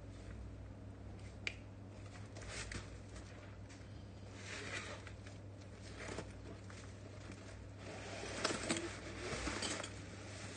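Cardboard box being opened and handled: flaps pulled back and cardboard sliding and scraping in several short bursts, with a sharp click about a second and a half in and the loudest rustling near the end.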